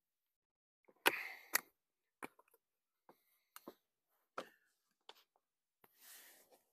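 Irregular sharp knocks and clicks from hand work, about seven of them, the loudest two close together about a second in, with a short rustle near the end.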